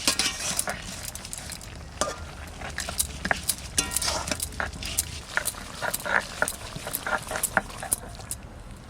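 Irregular clicks and knocks of stone on stone: leaves being ground to a paste with a stone roller on a flat grinding stone.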